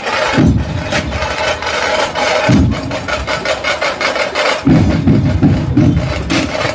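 Background music with a low, pulsing beat that comes in quicker and steadier past the middle.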